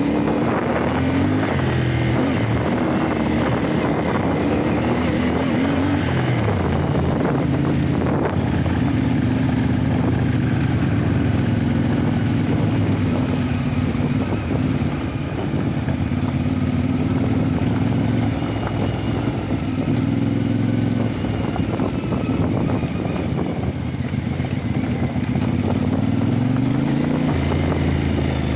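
Adventure motorcycle engine running while riding, its pitch rising and falling with throttle and gear changes, over steady wind and road noise.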